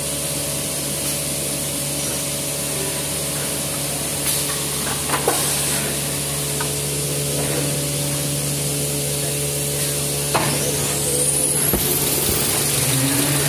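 Maxi roll paper machine running: a steady mechanical hum with hiss. It is broken by a few short clicks, and a high rising whine begins about ten seconds in.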